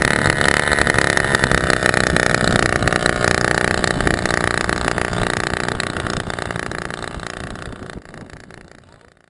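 Small two-stroke engine of a Hercules moped running steadily at a fast idle. It fades out over the last few seconds.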